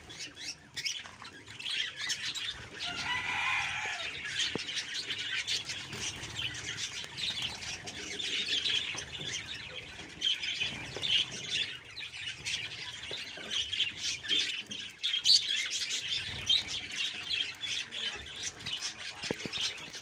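A flock of budgerigars chattering and chirping continuously, with wings fluttering as birds bathe in wet grass.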